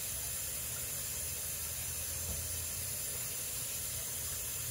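Kitchen tap running steadily off to the side, a constant even hiss of water with a low hum under it.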